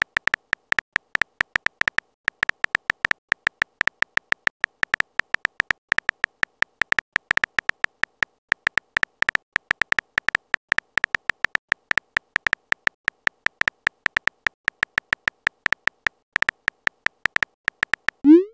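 Smartphone keyboard typing sounds: short, high key clicks at several a second, one per letter as a message is typed. Just before the end comes a brief rising swoosh, the message-send sound.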